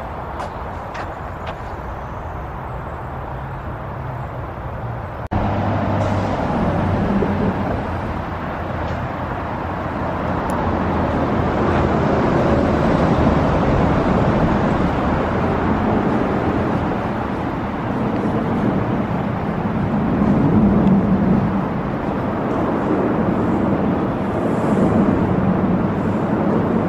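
Road traffic noise from the road overhead, heard in a concrete underpass: a steady wash that jumps louder about five seconds in, then swells and eases as vehicles pass.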